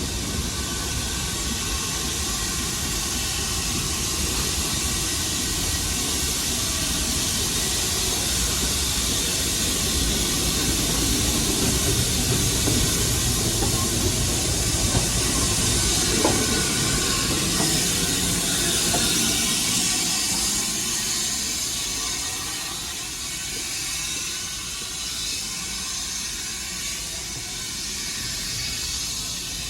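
Steam train going by with a steady rush of steam and rail noise. It grows to its loudest about halfway through, then fades.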